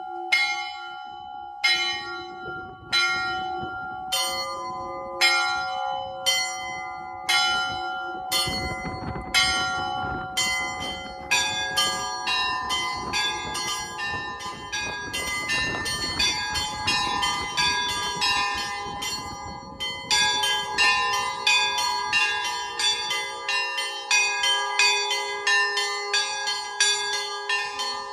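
Orthodox church bells rung by rope from the bell tower. One bell at first strikes steadily, about once every 0.7 s. From about nine seconds in, more bells join in a fast, dense peal over the held ringing of the larger bells.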